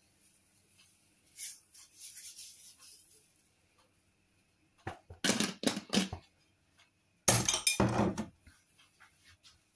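Kitchen handling noise as dried herbs and seasoning are sprinkled over a tub of grated raw potato: two short runs of rustling and knocking, about five and about seven and a half seconds in.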